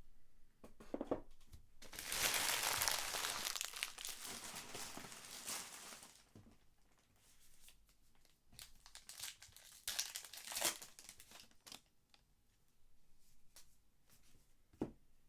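Trading-card pack wrapper being torn open and crinkled by hand: a dense burst of tearing and crinkling about two seconds in that lasts some four seconds, followed by scattered lighter crinkles and sharp ticks.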